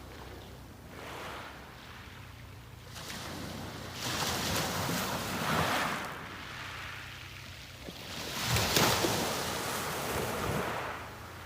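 Sea waves breaking and washing up the beach, two surges in a row, the second and louder one about nine seconds in.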